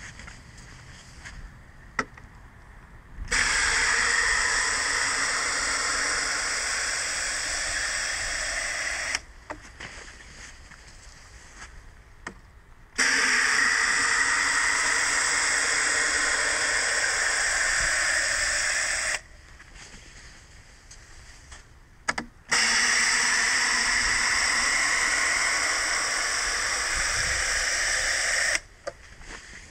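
Water spraying from a watering wand's nozzle into a cut-off plastic bottle set in the soil, a steady hiss and splash that comes in three spells of about six seconds each, with short quiet gaps between.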